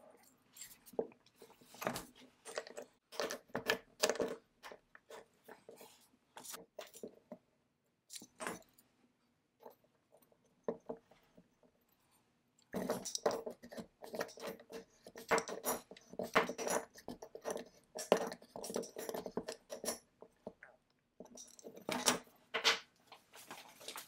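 Maytag Multi-Motor carburetor being assembled by hand: irregular clicks and clinks of brass fittings and a brass needle valve against the metal carburetor body. The sounds are busiest from a little past halfway through.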